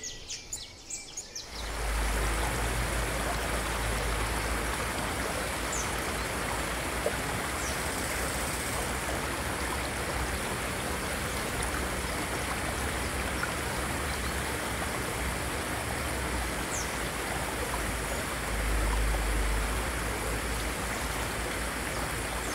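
Forest stream running in a steady rush of flowing water, with a few faint high bird chirps.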